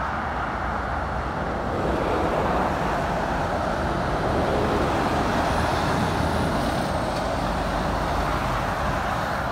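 Steady motorway traffic noise: lorries, vans and cars passing below, a continuous rush of tyres and engines.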